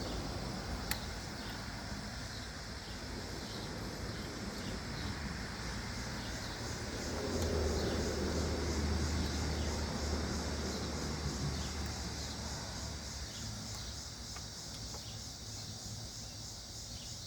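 A vehicle passing on the road, its low rumble swelling about seven seconds in and fading away over several seconds, over a steady high chirping of insects.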